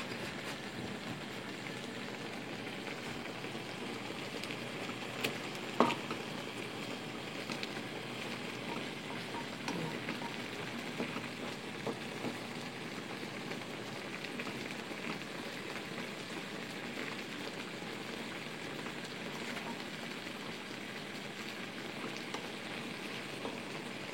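Chicken and mushrooms in a cream sauce cooking in a pan on the stove, a steady sizzle, with two sharp knocks about five and six seconds in.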